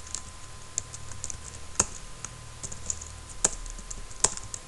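Typing on a computer keyboard: a quick, irregular run of key clicks, with a few louder keystrokes about two seconds in, at about three and a half seconds and near the end.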